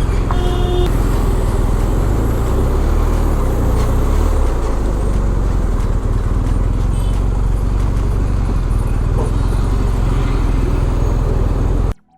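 Motorcycle riding on the highway, the BMW R1250 GS's boxer-twin engine under steady wind and road noise, with a brief beep about half a second in; the engine note shifts a few seconds in and everything cuts off abruptly near the end.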